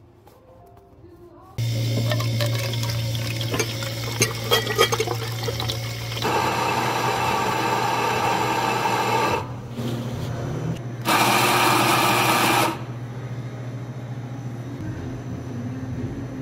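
Espresso machine switching on with a sudden steady pump hum, with water rushing and hissing through it. There are a few clicks and knocks in the first seconds, then two louder spells of rushing about halfway and again a little later.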